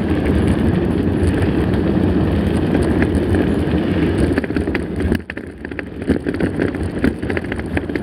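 Mountain bike rolling along a gravel dirt road, heard through a handlebar-mounted camera: a steady rumble of tyres on loose stones with wind on the microphone, and many short knocks and rattles from the bike over the bumps, more of them in the second half.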